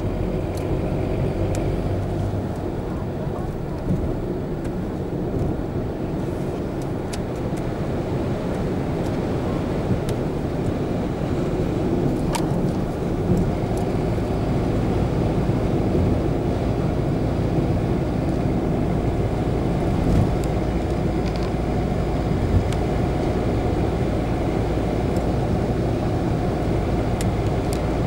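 A car driving steadily at road speed, heard from inside the cabin: a constant low engine hum with road and tyre noise and a few faint clicks.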